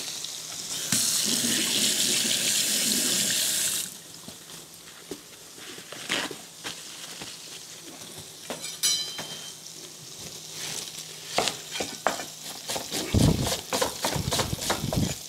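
A kitchen tap runs for about three seconds, then shuts off. Sardines keep frying in a pan in the background, and from about eleven seconds in a knife taps quickly against a wooden cutting board, slicing an onion.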